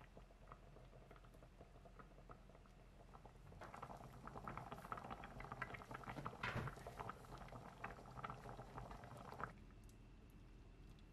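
Pot of spicy beef tripe stew (gopchang jeongol) boiling, a soft, dense bubbling and popping of broth. The bubbling grows louder about three and a half seconds in and falls away near the end.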